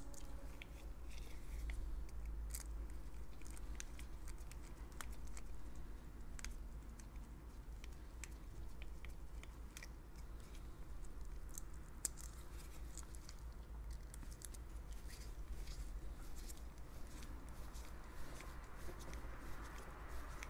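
Faint, irregular small clicks and scrapes of a small screwdriver working on a plastic three-pin plug top, over a steady low hum.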